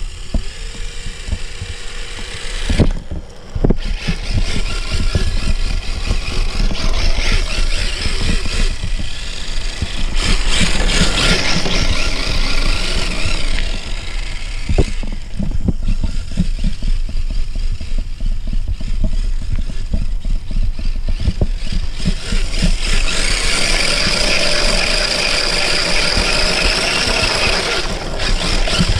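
Small electric RC drift car's motor whining as it is driven on asphalt. The high whine rises and falls with the throttle and is strongest in two long stretches, one a little before the middle and one near the end. Under it runs a steady low rumble with scattered small knocks.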